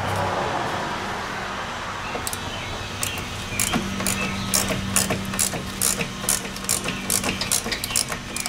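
Ratcheting wrench clicking in short, uneven strokes, starting about two seconds in, as a battery terminal clamp bolt is loosened.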